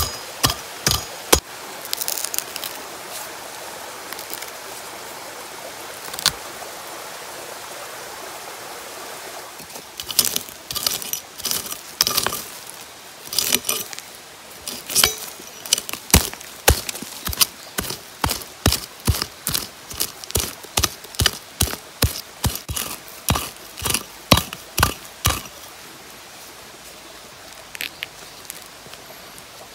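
A metal-bladed digging tool chopping into soil and roots again and again, digging out a bamboo shoot. A few strikes come at the start, then a long run of about two sharp strikes a second, with loose soil spilling between them. The strikes stop a few seconds before the end.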